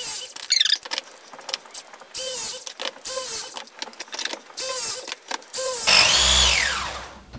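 Press gun with U-profile jaws being fitted onto a 16 mm press fitting, with a series of sharp clicks and knocks. Then, about six seconds in, its motor runs briefly with a low hum and a whir that rises and then falls in pitch as it presses the fitting.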